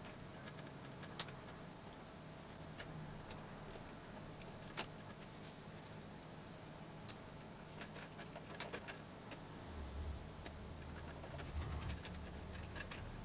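Sparse, light clicks and ticks of a small screwdriver and fingers working on the plastic and metal insides of a cassette boombox. A low handling rumble comes in about ten seconds in.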